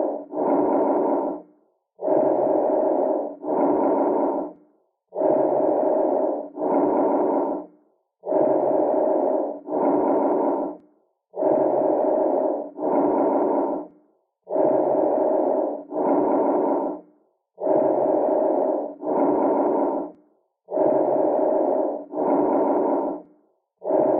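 Bronchovesicular breath sounds heard through a stethoscope: medium-pitched breathing in which each breath in and breath out are about equal in length, with a short gap between them, repeating about every three seconds. A normal breath sound, between bronchial and vesicular in character.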